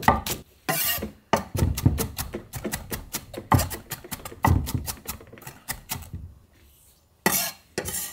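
A chef's knife rapidly chopping Korean green onion (daepa) on a wooden end-grain cutting board: a fast run of dull knocks of the blade on wood, several a second, with short pauses. Near the end there is a brief scrape as the blade is pushed across the board to gather the chopped pieces.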